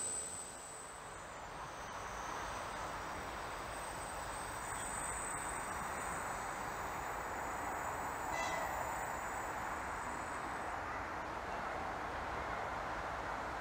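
Stadler FLIRT electric multiple unit approaching on the rails, a steady running noise that grows slowly louder. A brief high sound comes about eight seconds in.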